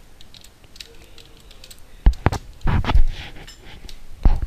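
Typing on a computer keyboard: a handful of separate keystrokes, the loudest a cluster about two to three seconds in and one more near the end.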